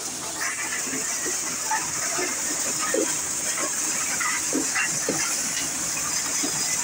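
Maize thresher running while a basin of cobs is fed into it: a steady high hiss from the machine with irregular knocks and rattles as the cobs are threshed.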